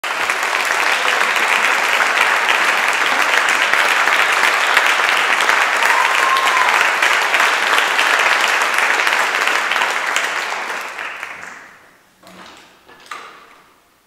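Audience applauding, the clapping dying away about eleven seconds in, followed by a few faint knocks.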